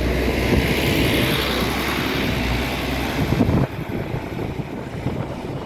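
A city bus running, a steady low engine rumble under road noise, dropping in level about three and a half seconds in.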